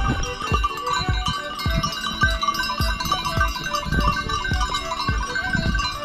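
A herd of goats on the move, many neck bells ringing at different pitches, over dull low thumps at a walking pace.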